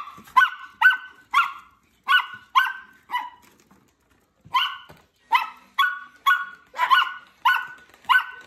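A small dog barking in short, high, sharp barks, about two a second, with a pause of about a second near the middle: barking for treats.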